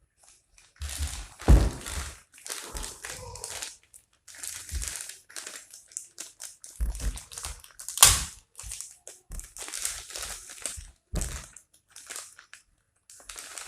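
Plastic packaging crinkling and rustling in irregular bursts as the parts are handled and unwrapped, with a sharp knock about eight seconds in and a heavier thump near the start.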